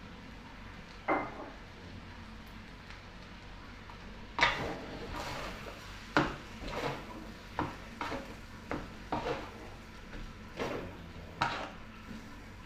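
Metal spatula scraping and clanking against a steel wok while stir-frying rice. After a single strike about a second in, the strokes come steadily, about one or two a second, from about four seconds in.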